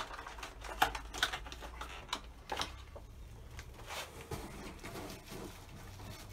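Scattered clicks and rustles of plastic plant packaging and a cardboard delivery box being handled.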